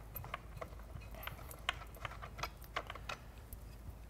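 Faint, irregular clicking and tapping of black plastic hand wheels being unscrewed from the threaded bolts of a Buon Vino Mini Jet wine filter and set down on a wooden barrel top.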